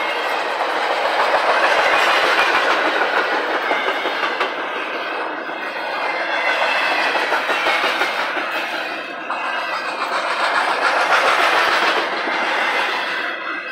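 Double-stack intermodal container well cars of a freight train rolling past on steel wheels. The wheels make a steady rumble and clatter on the rails, swelling and easing in loudness as the cars go by.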